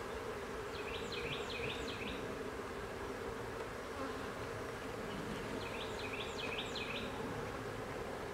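Honeybees flying around open hives: a steady, droning buzz. Two short clusters of high chirping sound over it, about a second in and again about six seconds in.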